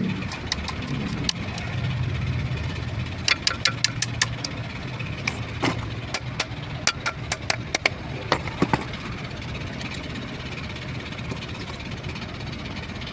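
Hammer striking a steel drift against the pinion bearing assembly in a truck differential carrier: sharp metal-on-metal taps in quick bursts of several strikes. A steady low engine hum runs underneath.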